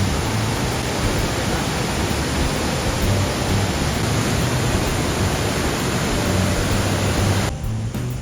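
Heavy rushing water of a river waterfall, a dense steady roar of falling water that cuts off sharply about seven and a half seconds in.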